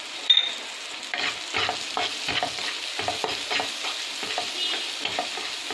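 Onion, tomato and chilli powder sizzling in a nonstick kadai while a wooden spatula stirs and scrapes the pan in quick repeated strokes, with one sharp tap near the start. This is the chilli powder being fried until its raw smell goes.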